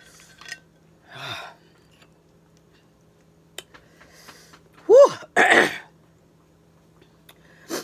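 A woman's vocal reactions while eating very spicy mussels: a short low hum about a second in, then about five seconds in a brief high squeal followed at once by a harsh cough-like burst from the throat, loud.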